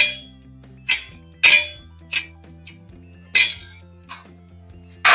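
Sharp metal clanks at uneven intervals, about six in a few seconds, some ringing briefly: parts of a washing machine's direct-drive motor and fittings being handled during disassembly.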